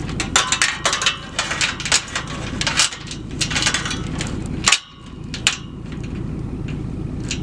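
A quick run of sharp knocks and clanks, irregular and several a second, over a steady low rumble.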